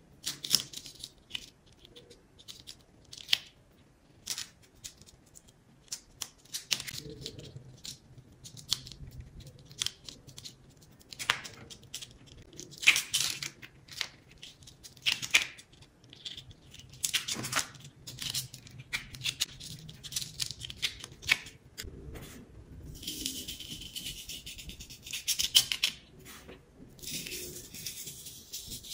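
A thin wooden stick scrapes and lifts the peel-off paper backing of a sand-painting card, giving short, dry scratches and small tearing sounds at irregular intervals. In the last few seconds colored sand is sprinkled from a plastic spoon onto the sticky card with a steadier hiss.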